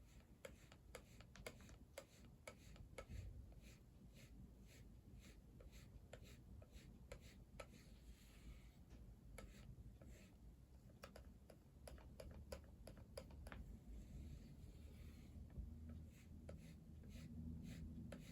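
Near silence in a small room, dotted with faint, irregular small clicks, with a low steady hum coming up near the end.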